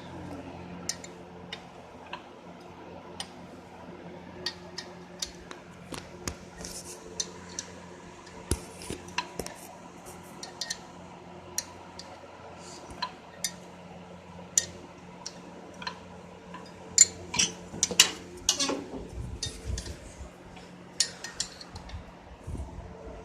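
Irregular metal clinks and taps of hand tools working at an old engine's cylinder head to free the head gasket, with a louder flurry of clinks about three-quarters of the way through. A steady low hum runs underneath.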